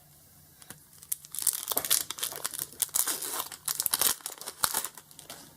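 Foil wrapper of a Pokémon TCG booster pack crinkling and tearing as it is ripped open, a run of irregular sharp crackles and rustles.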